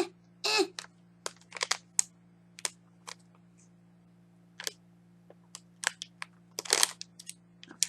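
Small packaging being opened by hand: a run of irregular crinkles and clicks, with a longer rustle about a second before the end, over a faint steady electrical hum.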